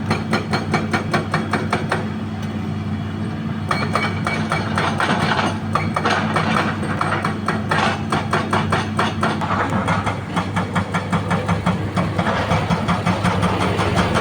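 Hydraulic breaker on a Hitachi Zaxis 200 excavator hammering rock in a rapid, regular run of blows. The excavator's diesel engine runs steadily underneath.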